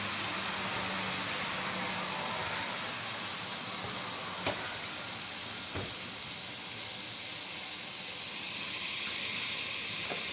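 Chicken and tomato masala sizzling in oil in a pot on the stove, a steady hiss, with two light knocks about halfway through.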